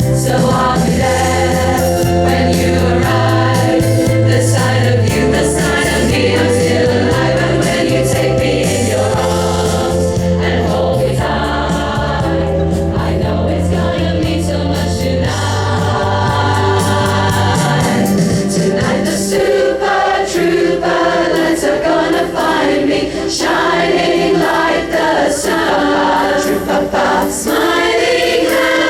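Background music: a choir singing over sustained low chords. The low accompaniment drops out about two-thirds of the way through, leaving the voices alone.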